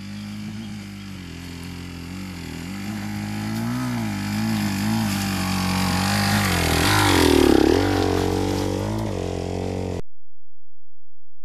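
Single-cylinder enduro motorcycle climbing a rocky trail, its engine note rising and falling with the throttle. It grows louder as it approaches and passes close by about three-quarters of the way in, then the sound cuts off abruptly near the end.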